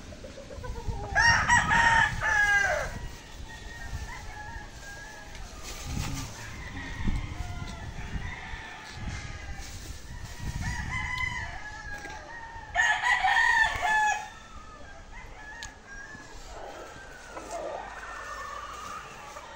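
Gamecocks crowing: two loud crows, one about a second in and one about thirteen seconds in, with fainter crows and clucks from other roosters between them.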